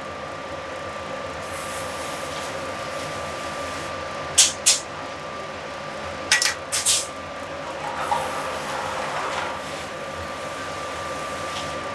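Steady noise of a commercial kitchen's ventilation and gas range, with a faint steady high whine. A few short, sharp metal clinks of the pan and utensil come about four to seven seconds in.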